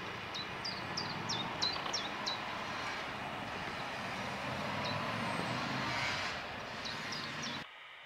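Steady rumble of distant engine noise that swells a little about six seconds in, then drops away abruptly near the end. Over it a small bird gives short, high, falling chirps, about three a second for the first couple of seconds, and a few more near the end.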